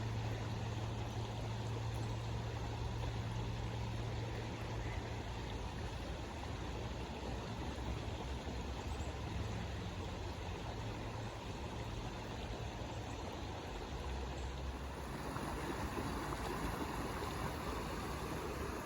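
Floodwater rushing steadily across a road, with a low hum under it that fades after a few seconds. The rushing grows louder about fifteen seconds in.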